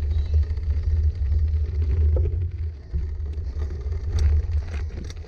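Steady low rumble from a bicycle-mounted GoPro rolling down a gravel drive: wind buffeting the microphone and tyres on loose gravel, with a few light clicks from the stones.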